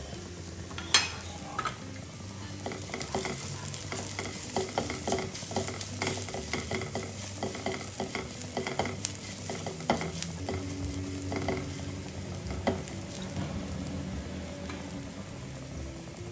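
Sliced onions and curry leaves frying in a nonstick pan, sizzling steadily while a spatula stirs and scrapes them in quick, irregular strokes that ease off near the end. A sharp tap about a second in.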